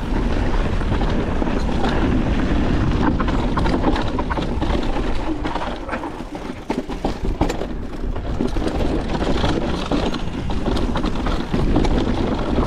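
Niner WFO e9 mountain bike descending a dirt trail at speed: tyres running over dirt and rock while the chain and frame rattle with many sharp clacks, over heavy wind rumble on the microphone.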